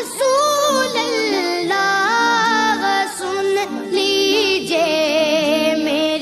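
A naat, an Islamic devotional song, sung by a solo voice in a melismatic, ornamented line with vibrato over steady held tones.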